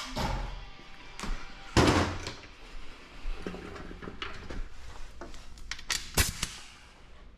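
Scattered knocks and clanks from hand work on a car's wheel hub, the loudest about two seconds in and again near six seconds.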